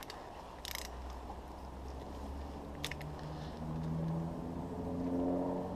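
Faint handling of the water pump housing bolts as they are started in the lower unit of a Yamaha 40 hp outboard, with two sharp metal clicks, about a second in and near three seconds. A low droning tone swells in the second half.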